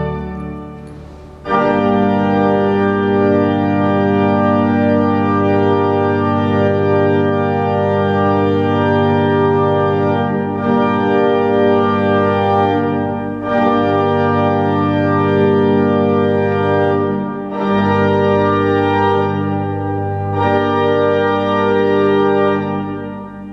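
Church pipe organ playing slow, sustained full chords that resound through the large Gothic nave. After a short lull it comes back in suddenly about a second and a half in, moves from chord to chord with brief breaks, and dies away near the end.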